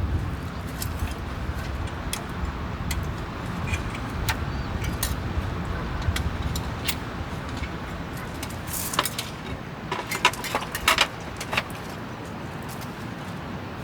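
Scattered light clicks and clinks of small hard objects being handled, with a quick run of rattling about nine to eleven seconds in, over a steady low rumble.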